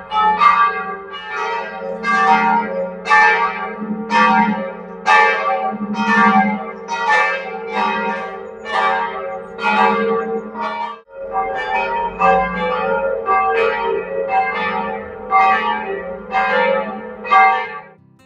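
Church bells ringing to call people to the Saturday evening service: several bells striking in steady alternation, about one and a half strokes a second, over a continuous low hum. There is a brief break about eleven seconds in.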